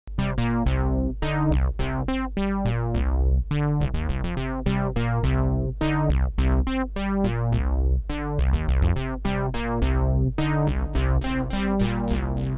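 Oberheim Matrix 1000 synthesizer playing a fast run of short, plucky notes over sustained low bass notes, fed through an Echolette E51 tape echo.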